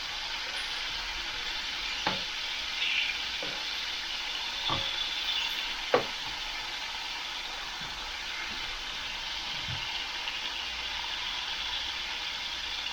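Back bacon sizzling steadily in a frying pan, with a few short knocks, the sharpest about six seconds in.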